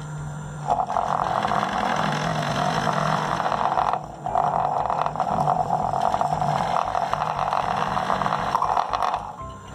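Electric drill in a homemade drill stand boring a hole through a PVC pipe end cap. The motor hums, then under a second in the bit bites into the plastic with a loud cutting noise. The cutting breaks off briefly about four seconds in and starts again, then stops shortly before the end, leaving the motor humming.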